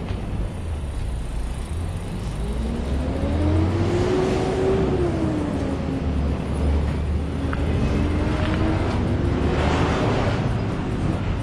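A motor vehicle going by, its engine note rising for a couple of seconds, falling away about halfway through, then climbing again near the end as a louder swell of road noise passes, over a low wind rumble on the microphone.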